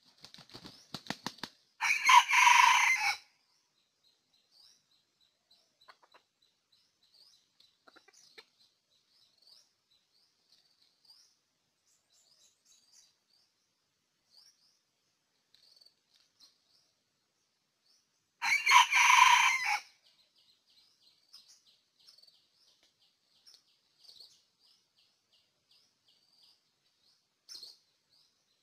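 Red junglefowl rooster flapping its wings in a quick burst, then crowing twice, once about two seconds in and again about eighteen seconds in, each crow short and clipped. Faint high insect or bird chirps in between.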